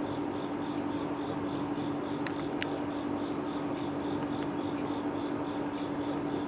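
Crickets chirping in an even pulsing rhythm, about three chirps a second, over a continuous high whine and a steady low hum. Two light clicks come about two and a half seconds in.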